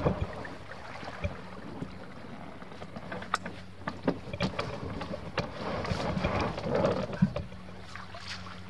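Canoe being paddled on a creek: paddle dips and water sloshing around the boat, with scattered light knocks.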